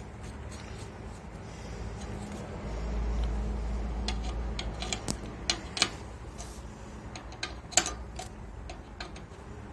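Hands working on small parts and tools: a low rumble of handling, then a series of sharp, irregular clicks and taps.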